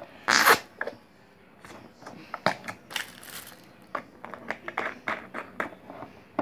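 Slime squished into a small plastic jar, then the jar's plastic screw-on lid twisted shut, giving a string of light plastic clicks and scrapes.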